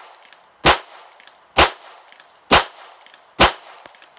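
Four shots from a GSG Firefly .22 pistol, about a second apart, each with a short ring-out. It is firing light 36-grain copper-plated hollow points, which cycle the slide only some of the time.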